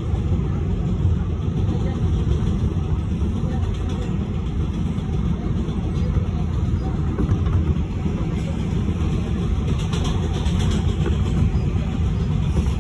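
New York City Subway 7 express train running at speed on elevated track, heard from inside the car as a steady low rumble of wheels on rail. There is a brief burst of higher clatter about ten seconds in.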